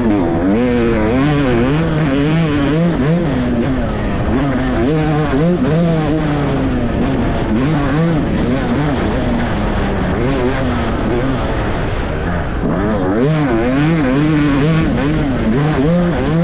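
Two-stroke Yamaha dirt bike engine revving up and down over and over as the rider works the throttle, heard from on board the bike.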